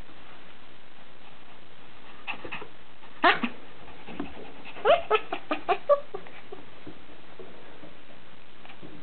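Bernese Mountain Dog puppy yelping: a few faint cries, then one loud yelp about three seconds in and a quick run of about five short yelps around five seconds in.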